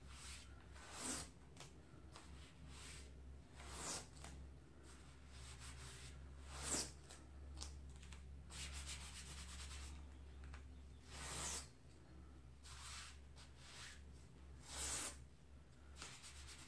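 A plastic stencil sheet being handled and smoothed, heard as brief faint rustling and rubbing swishes, about five louder ones a few seconds apart. A faint steady low hum runs underneath.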